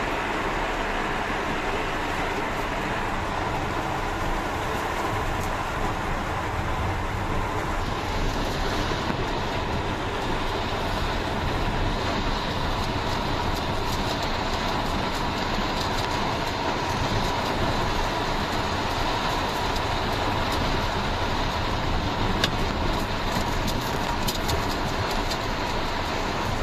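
Heavy rain hitting the roof and windscreen, heard from inside a Maruti Suzuki Alto K10's cabin, over the steady noise of the car driving on a wet road. A few faint ticks show up in the second half.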